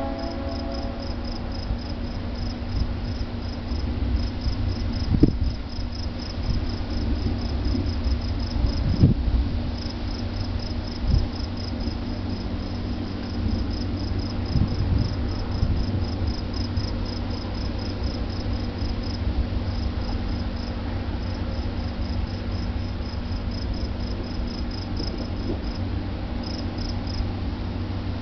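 Field crickets chirping in a steady, rapid, high-pitched pulse over a continuous low rumble, likely a train running in the distance. A horn-like tone, likely the train's horn, trails off right at the start.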